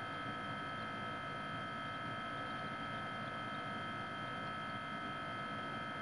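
Refrigerator running: a steady hum with a constant high-pitched tone over it, unchanging throughout.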